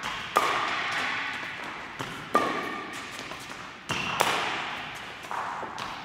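Badminton racket strings striking a shuttlecock three times, about two seconds apart, with the loudest hit near four seconds in. Each crack rings on in a large hall, and fainter knocks fall between the hits.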